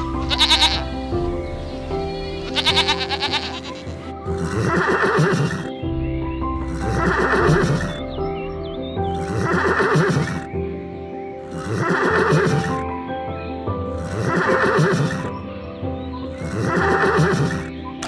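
An animal call, each about a second long, repeated six times at even spacing over steady background music, with a couple of shorter calls near the start.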